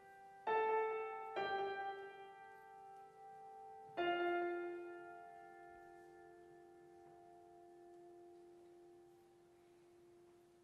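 Piano striking three chords, about half a second in, a second later and about four seconds in. The last chord is held and rings out, slowly dying away.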